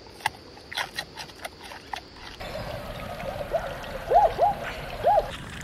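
A giant panda chewing bamboo, with sharp crunches and cracks of the stalks. Then, over a steady hiss, come a few short calls, each rising and falling in pitch; the three loudest fall between about four and five seconds in.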